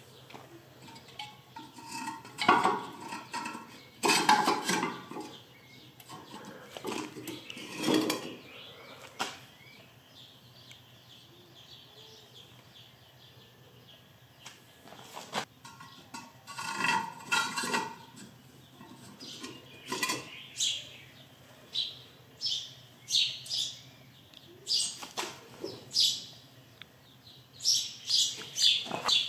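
Hollow clay bricks knocking and scraping against each other and against a homemade steel-rod brick tongs as it is clamped onto them and lifted. The clatter comes in irregular bursts, with a run of short sharp clinks near the end.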